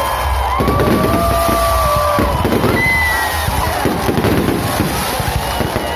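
Fireworks going off in a dense, continuous run of bangs and crackles, with held and gliding tones over them.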